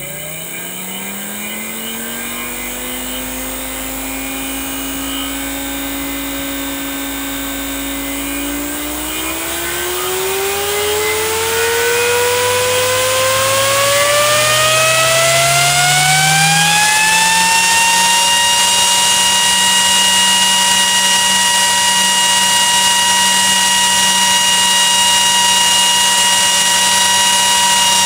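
Nidec Servo G1238X54BHYP-72 high-power 120 mm PWM fan spinning up: its whine climbs in pitch, holds for a few seconds, then climbs again and grows louder. From about two-thirds in it runs at full speed with a steady whine and rush of air.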